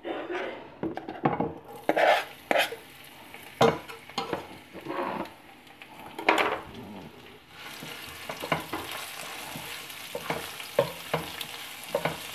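Silicone spatula scraping and knocking on a non-stick pan, stirring cumin seeds in oil. About halfway through, chopped garlic in the hot oil starts a steady sizzle, with spatula strokes going on over it.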